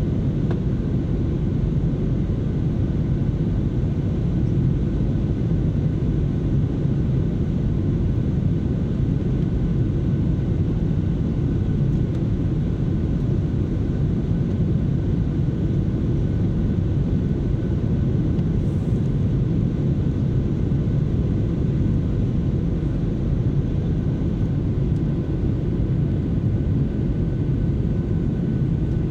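Cabin noise inside a Boeing 737-700 on final approach: a steady low rumble of the jet engines and airflow, with a faint steady whine above it.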